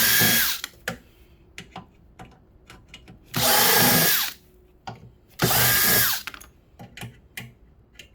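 Power drill-driver backing screws out of a microwave's casing in three short bursts of under a second each. The motor's pitch rises, holds and drops with each run, with small clicks and rattles between.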